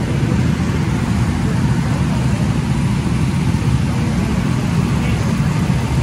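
Several go-kart engines idling together in a steady low rumble.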